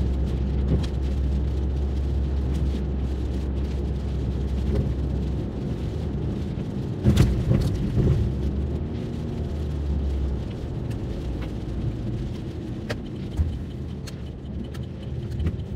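A car driving, heard from inside the cabin: steady low engine and road rumble. A deeper drone runs under it and drops away about ten seconds in, and there is a single knock about seven seconds in.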